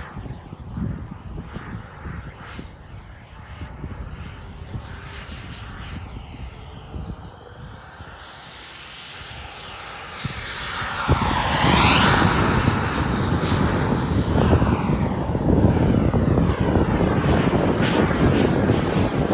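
Turbine engine of an RC F-16 model jet flying past: a jet whine and rush that build as it comes in low, peak about halfway through as the high whine drops in pitch, then stay loud as it climbs away.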